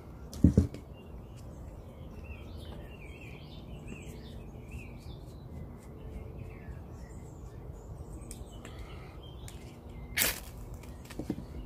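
Birds chirping in the background, with a loud low knock about half a second in. Near the end comes one short, sharp scrape of the Leatherman Signal's ferrocerium fire-starter rod being struck, which lights the tinder on the first strike.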